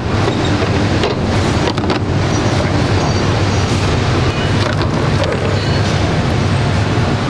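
Steady factory-floor machinery din, a constant low hum under a noisy wash, with a few sharp metallic clicks from bench work on rifle bolt parts.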